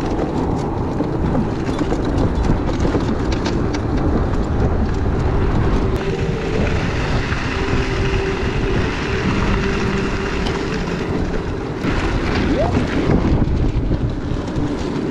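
Wind buffeting the camera microphone over the rolling road noise of an Onyx RCR electric moped under way. A faint steady whine joins in for several seconds midway.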